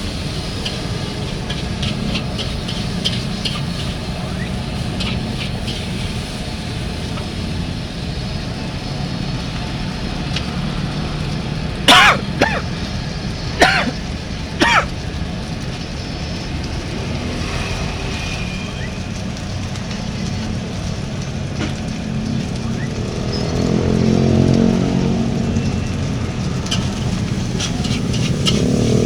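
Roadside fried-rice wok cooking: a steady rumble of street traffic with a light crackle, and three sharp ringing metal clangs of the spatula on the wok a little before the halfway point. A motorcycle engine swells past near the end.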